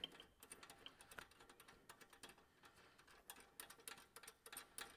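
Faint, irregular clinks of a steel track-limiter chain's links knocking together as it is handled to shorten it.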